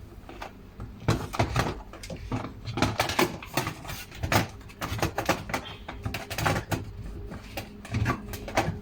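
Dishwasher parts being handled and fitted: irregular clicks, knocks and light clatter throughout.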